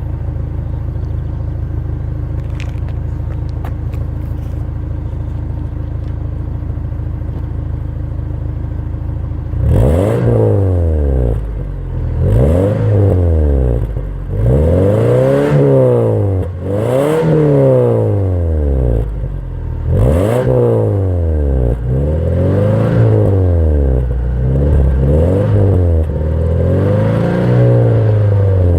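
Subaru Legacy BD's 2.2-litre flat-four engine on its stock exhaust, idling steadily, then revved up and let fall back about eight times from about ten seconds in, each rev lasting two to three seconds.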